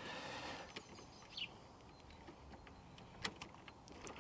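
Faint hand-work sounds while a battery tie-down clamp is fitted: a brief rustle, then a few light clicks and taps. A short high chirp comes about a second and a half in.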